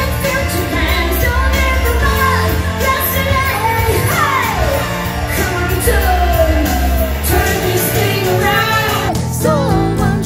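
Live pop stage-show music: a band with a steady bass beat under a lead vocalist belting, with sliding vocal runs and one long falling slide. About nine seconds in it breaks off and cuts to a different song.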